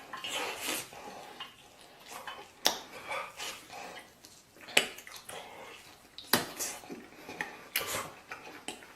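Eating at the table: utensils click sharply against a dish about four times, with quieter chewing and handling noises in between.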